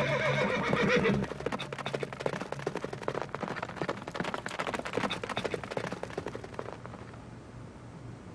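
Horse whinnying, then a quick run of hoofbeats as a horse gallops off, fading away over several seconds.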